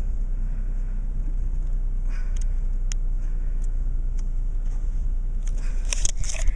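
Low, steady rumble of a car's engine running, heard from inside the cabin. A few light clicks, then a burst of rustling and clicks near the end.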